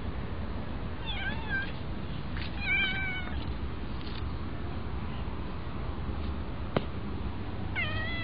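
A kitten meowing three times in short, high calls: two a second or so apart in the first few seconds and a third near the end. A single sharp click falls between them.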